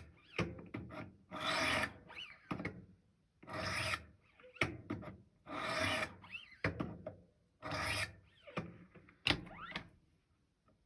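Steel knife edge drawn in light trailing passes across a 200-grit sharpening stone, a rasping scrape about every two seconds with softer strokes and small squeaks in between, stopping about ten seconds in. These are deburring passes that knock the burr off the freshly sharpened Cruwear edge.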